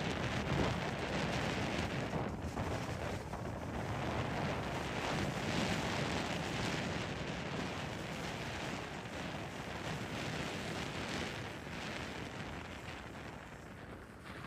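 Wind blowing across the microphone in uneven gusts, easing off near the end.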